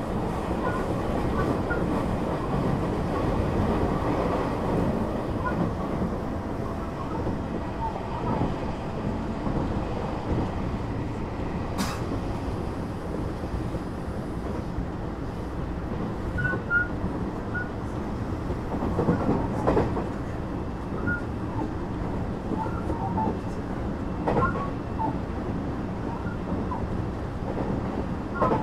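Running noise of a JR West 225 series 0 electric train (Toyo IGBT inverter car) heard inside the passenger car under way: a steady rumble of wheels on rail. It carries a sharp click about twelve seconds in, a few knocks later on, and brief high squeaks in the second half.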